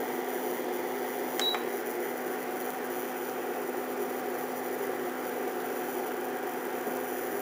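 Portable induction hot plate running with a steady hum, with a single short beep about one and a half seconds in as its heat setting is raised.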